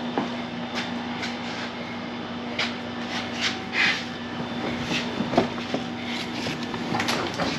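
A car's molded floor carpet being pulled and dragged out of the stripped interior: irregular rustling and scraping, several strokes a few seconds apart, over a steady hum.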